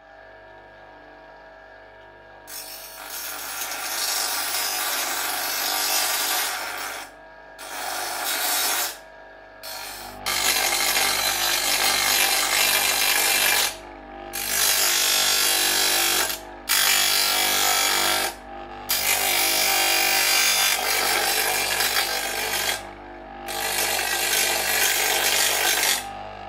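Bench grinder running: a steady motor hum, and from about two and a half seconds in, a loud harsh grinding as the steel teeth of a hand saw are pressed against the wheel. The grinding stops briefly several times as the blade is lifted off and pressed on again.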